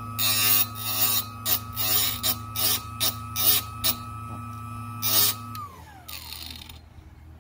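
Electric drill-bit, knife and scissor sharpener's motor running with a steady whine and hum, while a drill bit held in its guide grinds against the wheel in repeated short scraping bursts as it is twisted. Near the end the whine drops in pitch and fades as the motor spins down.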